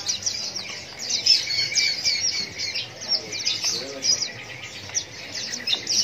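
A flock of pleci dakun white-eyes kept together in one cage, chirping and twittering all at once, a dense chorus of rapid, high overlapping calls.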